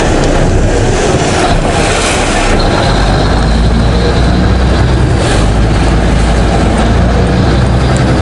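River ferry engine running with a steady low rumble that grows heavier about three seconds in, over the rush of water and wind.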